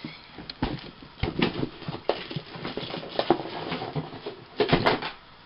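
Packs of craft supplies being handled and set down: packaging rustling with irregular light knocks and taps, and a louder cluster of knocks near the end.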